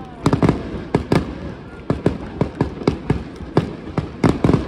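Aerial fireworks shells bursting overhead in a rapid, irregular string of bangs, several a second, with a dense cluster of bangs near the end.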